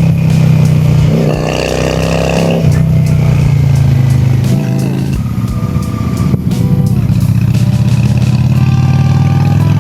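Honda Shadow V-twin motorcycle engines running under way, a steady deep drone whose pitch steps and shifts around the middle, as with a gear change or throttle change.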